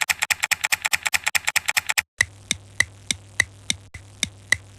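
Computer keyboard typing, fast and even at about ten keystrokes a second, which stops about two seconds in. Then comes a row of slower, evenly spaced clicks, about three a second, over a steady low hum.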